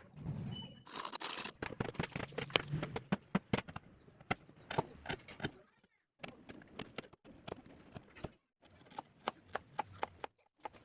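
Wood being knocked and tapped during joinery work: a quick, irregular series of sharp wooden knocks, in several short takes that cut off abruptly.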